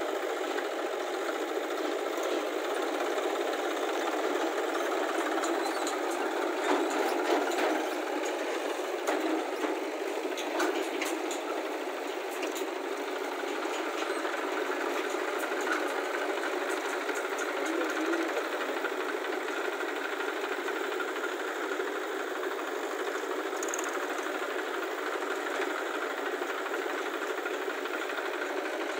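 Tractor diesel engine running steadily under load, with a few sharper knocks and clanks between about 6 and 12 seconds in.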